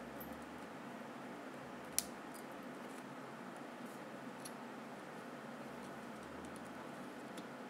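Faint steady room hum with one sharp click about two seconds in and a few fainter ticks later.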